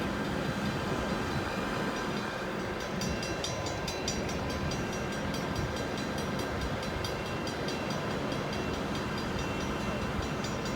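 Freight train moving past at close range: a steady rumble with fast, even clicking.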